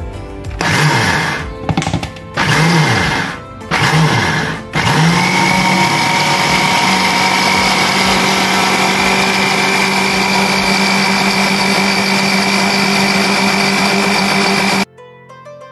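Black+Decker countertop blender grinding soaked urad and moong dal into batter. It is pulsed four times, each pulse spinning up with a rising whine, then runs steadily for about ten seconds before cutting off abruptly.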